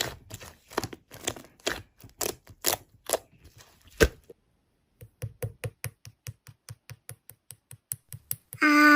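Slime being handled, with irregular crackling clicks. After a brief silence about four seconds in, an even run of clicks follows, about five a second.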